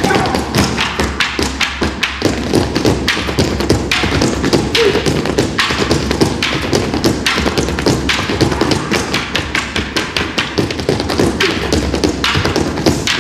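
Long wooden poles knocked on a stage floor and clacked against one another by an ensemble, a fast interlocking rhythm of knocks and taps.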